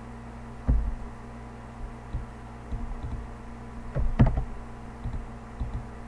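Computer mouse clicks and keyboard taps, picked up as dull, irregular knocks and thumps through the desk, over a steady electrical hum.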